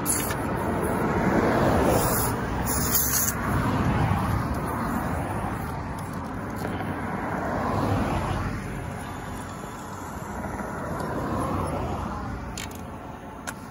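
Road traffic: cars passing one after another on a multi-lane road, the tire noise swelling and fading several times.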